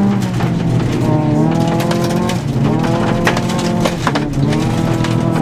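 Rally car engine heard from inside the cabin, revving hard and climbing in pitch, dropping twice at upshifts, about two and four seconds in. Gravel stones tick and knock against the underbody throughout.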